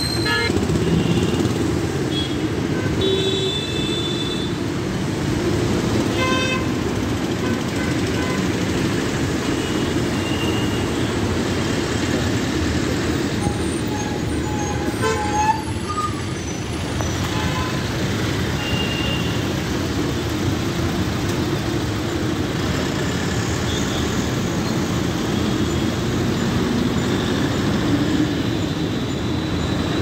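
Interior of a moving city bus: steady engine and road rumble. A few short vehicle horn toots sound from the traffic in the first several seconds.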